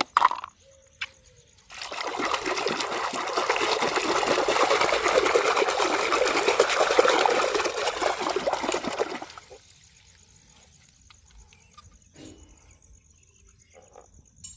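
Running water splashing steadily for about eight seconds, then stopping; a few faint ticks follow.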